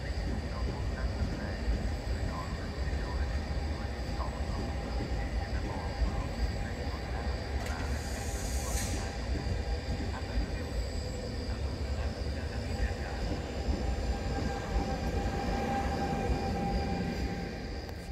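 Freight train hauled by an electric locomotive running past with a steady rolling rumble of wagons on the rails. There is a short high hiss about halfway through.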